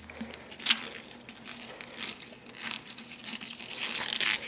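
Close rustling and scuffing of a leather belt and cotton shirt being handled as the belt end is fed through its metal ring, with one sharp tap a little under a second in.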